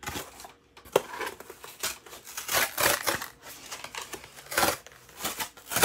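A cardboard box being torn apart by hand: several separate ripping noises in a row as its sides are pulled off.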